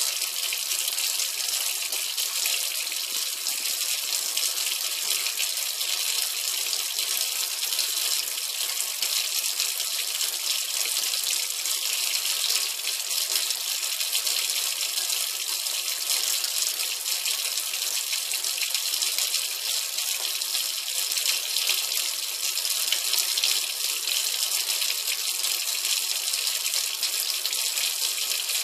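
Kitchen tap running in a thin, steady stream that splashes into a stainless steel sink, while a Bengal cat laps at the falling water.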